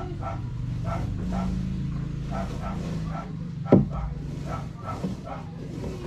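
A dog barking repeatedly, about two barks a second, over a low steady hum, with one sharp, loud knock a little past the middle.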